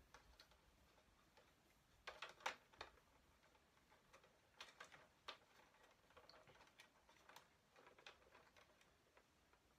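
Faint clicks and taps of hard plastic from a toy APC and an action figure being handled, in a few small clusters a couple of seconds apart.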